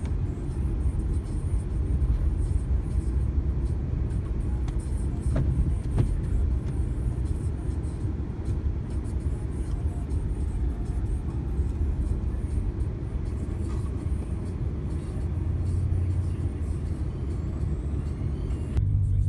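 2015 Ram pickup truck driving on snowy roads: a steady low rumble of engine and tyres. It changes abruptly to a steadier hum near the end.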